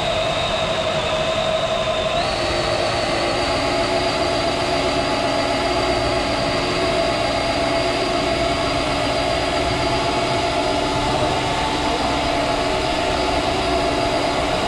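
Traxxas TRX4 Sport RC crawler's electric motor and drivetrain whining steadily under the load of towing a person in a wheelchair, over a rolling rumble. The whine steps up in pitch about two seconds in.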